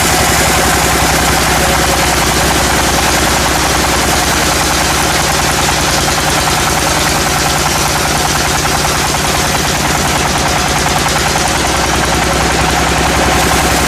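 Sawmill machinery running loud and steady: an engine hum under a fast, even rattle.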